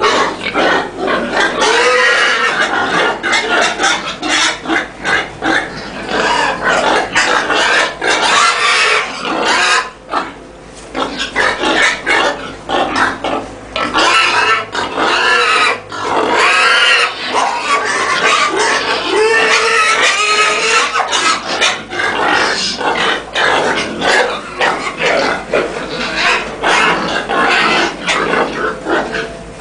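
Many pigs in farm pens squealing and grunting together in a dense, continuous din, which eases briefly about ten seconds in.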